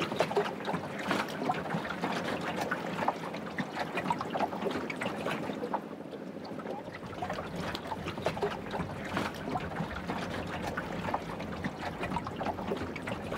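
Small waves lapping against a boat's hull: an irregular trickling and slapping of water with many little splashes.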